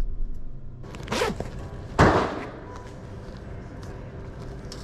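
Handling noise: a brief rustle about a second in, then a single sharp thud about two seconds in, over a low steady hum.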